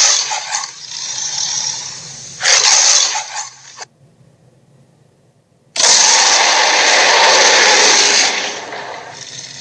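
Dinosaur roar sound effects, harsh and rasping: one roar trailing off, a short loud roar about two and a half seconds in, then after a pause a long roar that fades out near the end.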